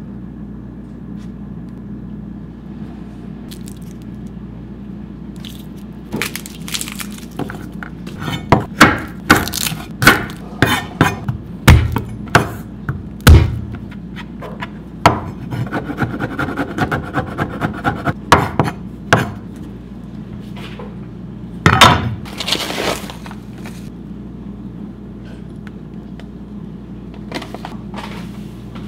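A kitchen knife working garlic on a wooden cutting board. There are heavy thumps as cloves are smashed with the flat of the blade, then a run of quick chopping strikes and scrapes as the garlic is minced, over a low steady hum.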